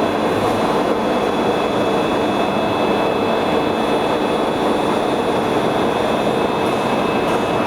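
RT305M metal-spinning lathe running: a steady, even mechanical noise with a few faint steady high tones above it.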